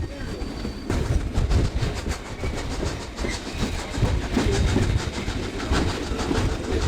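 Steam train hauled by Baldwin 2-8-2 locomotive No. 18 working uphill, heard from an open coach window: a steady low rumble with a quick, regular beat that sets in about a second in.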